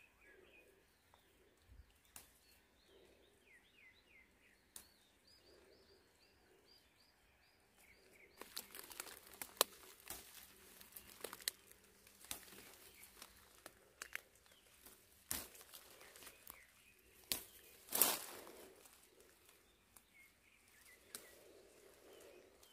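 Leaves and stems of a wild rose (multiflora rose) bush rustling under a hand picking its buds, with sharp snaps and clicks, from about eight seconds in. Birds chirp faintly before it, a quick run of repeated notes.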